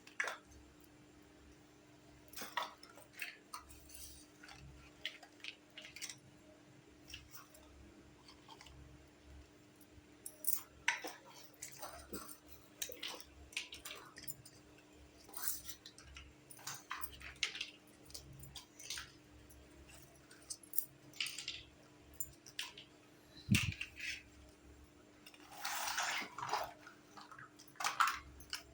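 Small plastic toy kitchen pieces being handled: irregular light clicks, taps and clinks, with a longer rustle near the end.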